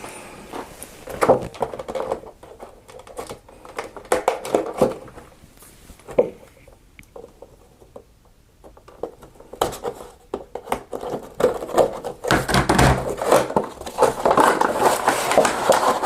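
An action figure's cardboard box and plastic packaging tray being handled and opened: scattered clicks, knocks and crinkling, with a longer stretch of rustling and crackling near the end.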